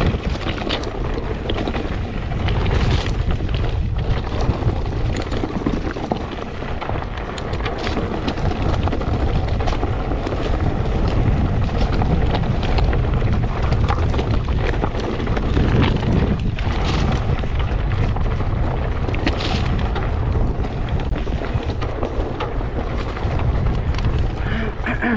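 Mountain bike riding fast down a rough trail: wind buffeting the microphone with a steady low rumble, over tyre noise on the dirt and frequent clicks and knocks from the bike.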